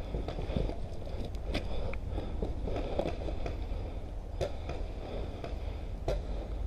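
Steady low wind rumble on a rain-wet action-camera microphone, with scattered irregular knocks and clicks from a paintball player's footsteps and gear as he moves along a muddy trench.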